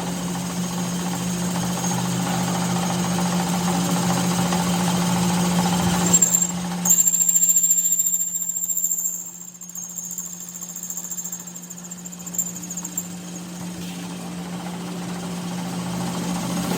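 A machine running with a steady low hum. It drops in level for a few seconds midway, then builds back up near the end.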